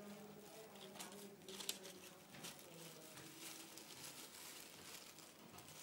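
Faint crinkling and rustling of a crumpled wrapper in a baby's hands, a few sharp crackles scattered through, with faint voices in the background.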